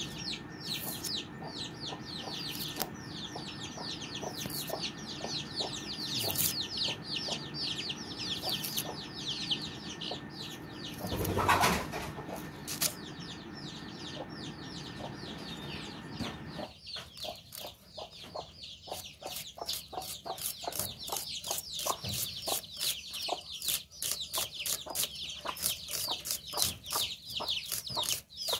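Chickens clucking and calling in a rapid run of short high calls, several a second, with a loud brief noise about eleven seconds in. A faint steady hum underneath stops abruptly about two-thirds of the way through.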